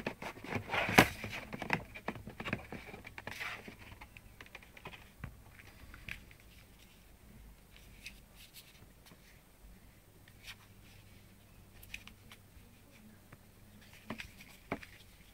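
Hands handling a new mobile phone and its box and packaging: rustling, scraping and several sharp clicks during the first few seconds, then fainter scattered clicks and taps.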